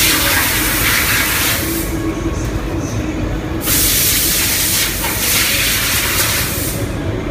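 Factory machinery running with a steady low rumble, overlaid by two long bursts of hiss, the first at the start and the second about four seconds in.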